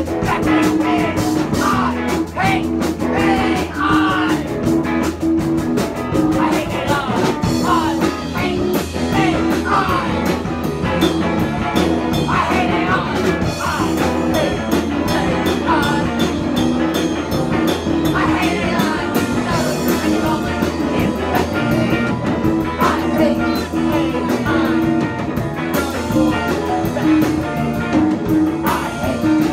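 Punk rock band playing live, loud and steady: electric guitar, bass and drum kit with a sung lead vocal.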